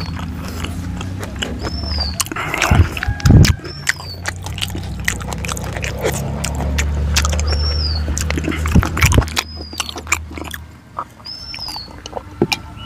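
Close-up eating sounds: wet chewing and mouth clicks as rice and fried fish and pork are eaten by hand, ending with a sip from a steel tumbler. A bird repeats a short, high, arched chirp every second or two, over a low steady hum that stops about ten seconds in.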